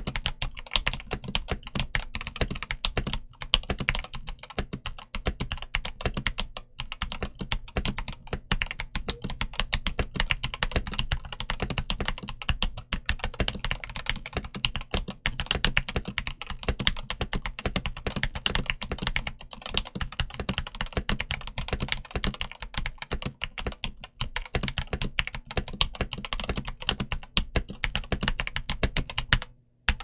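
Continuous typing on a Yunzii YZ75 Pro mechanical keyboard with Gateron G Pro Yellow linear switches and SA-profile PBT keycaps: a dense, even patter of keystrokes that stops just before the end.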